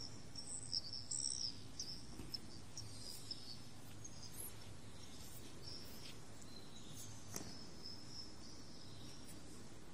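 Faint high-pitched chirping that comes and goes in short irregular calls over a quiet room, with two sharp clicks about seven seconds in.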